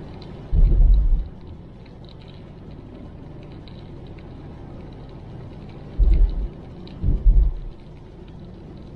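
Steady road and tyre noise inside a moving car's cabin on a rain-wet road, with faint ticking of raindrops on the windscreen. Three deep low thuds break through: about half a second in, at about six seconds, and at about seven seconds.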